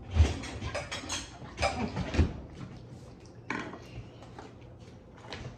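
Plates and spoons clinking and clattering as food is served, with a quick run of knocks in the first couple of seconds and a few more clinks later.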